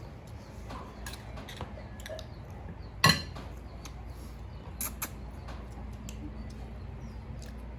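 Mealtime clatter of dishes and utensils: scattered small clicks and taps, one sharp knock about three seconds in, and two smaller clinks near five seconds, over a steady low hum.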